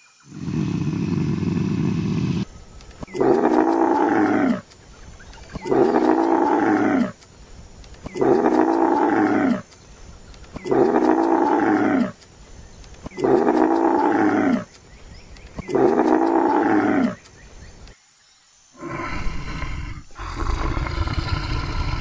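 An animal's call repeated seven times, about every two and a half seconds, each call a little over a second long with a pitch that rises and then falls. A low rumbling noise comes before the first call, and a rougher, lower call starts near the end.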